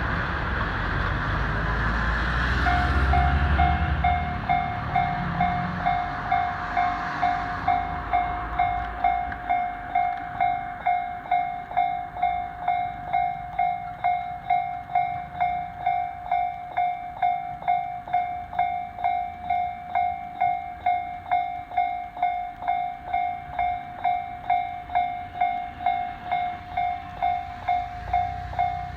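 A train rumbles over the level crossing for the first few seconds. About three seconds in, the crossing's warning bell starts: an electronic ding repeating steadily about twice a second.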